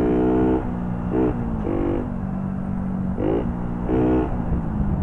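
Four-stroke moped engine running under way, its pitch rising in several short bursts of throttle over a steady low hum and road and wind noise.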